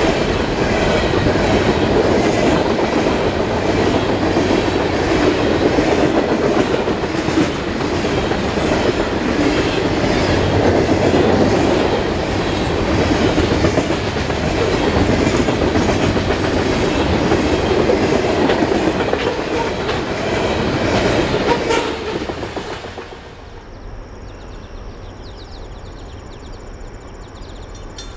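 A long freight train of Norfolk Southern coal hopper cars rolling past: steady heavy rumble with clickety-clack of the wheels over the rail joints. About 22 seconds in, it falls away to a much quieter outdoor background.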